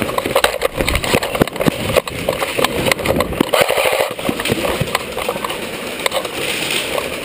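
Running footsteps on a bare concrete floor, with irregular knocks and rattles of carried gear close to the microphone.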